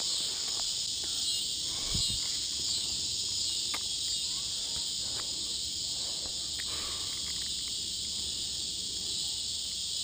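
Cicada droning: a steady, unbroken high-pitched buzz, with a few faint knocks from handling the fishing gear.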